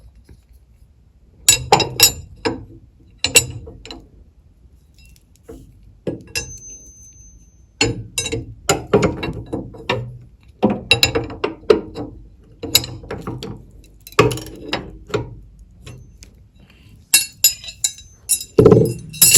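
Irregular metal clinks and clanks as the steel parts of a table-saw arbor, dado stack and nut are handled, coming in short clusters with the loudest clank near the end.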